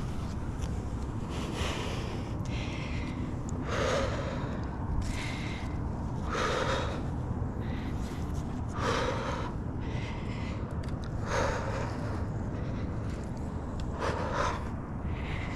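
A tree climber's heavy breathing from exertion: a loud breath about every two and a half seconds, over a steady low rumble.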